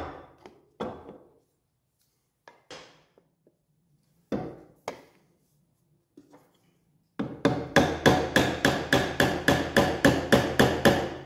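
A few scattered knocks, then a fast, even run of about twenty light hammer taps, roughly five a second, from a small hammer tapping a machined metal end plug into a PVC pipe.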